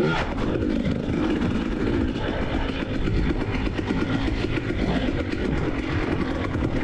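2021 KTM EXC 300 TPI single-cylinder two-stroke enduro bike's engine running as it is ridden, its pitch rising and falling with the throttle.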